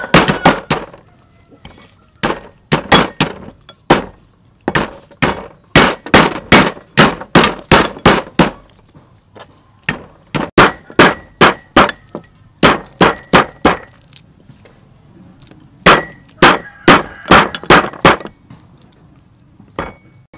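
Heavy cleaver chopping lemongrass stalks on a thick round wooden chopping block: sharp chopping strokes in runs of about three to four a second, broken by pauses of a second or two.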